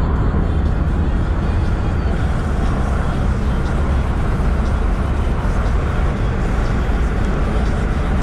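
Steady engine drone and tyre and road noise inside a moving car's cabin, with a constant low hum.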